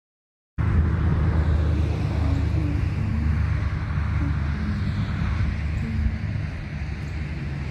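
Steady low outdoor rumble, fairly loud, that starts suddenly about half a second in after silence: open-air background noise on a phone microphone, such as wind or road traffic.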